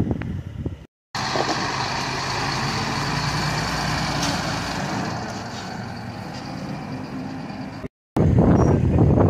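Fire tanker truck's engine running steadily, a low even hum under a hiss. It is framed by short cuts of gusty wind buffeting the microphone at the start and end.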